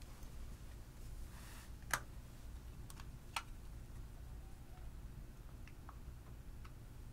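Faint clicks and taps of a plastic makeup compact being handled and opened, the loudest click about two seconds in. A few softer ticks come near the end as a plastic spatula works the cream blush in its compact.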